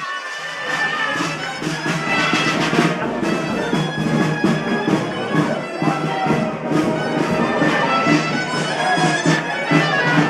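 Bagpipe playing a melody over a steady drone, with a regular beat alongside.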